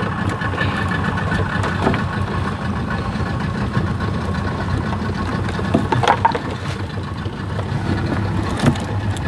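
A small boat's outboard motor idling steadily, holding the boat in place. A few short knocks sound over it.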